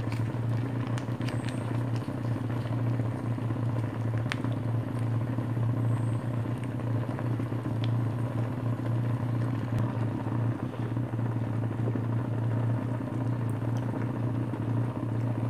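Steady low motor-like hum throughout, with a few light clicks.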